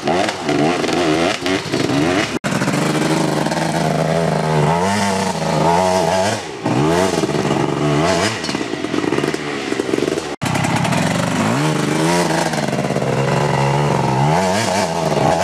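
Off-road dirt-bike engines climbing a rocky trail, revving up and down as the throttle is worked over the rough ground. The sound breaks off for an instant twice.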